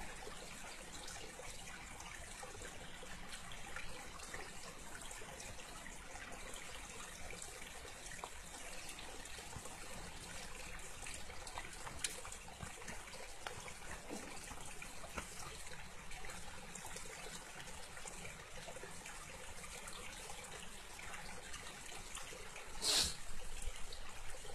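Steady rush of river water running over rocks, with one short sharp hiss near the end.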